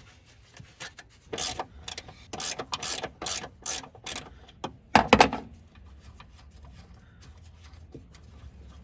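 Ratcheting box wrench worked back and forth to spin a 15 mm nut off the top stud of a rear shock, a quick run of rasping ratchet strokes, then a louder clunk about five seconds in.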